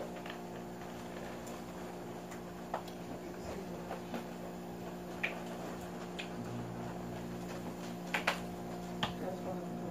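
A steady electrical hum made of several tones, with a few scattered light clicks and taps, two close together about eight seconds in.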